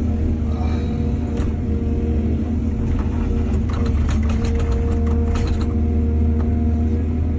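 Heavy diesel engine of an excavator running steadily under load. Midway through, a quick run of clicks and clatters.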